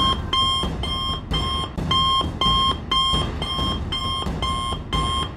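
Cartoon smartwatch ringing with an incoming call: a repeating electronic beep of two high tones, about two beeps a second, going on steadily.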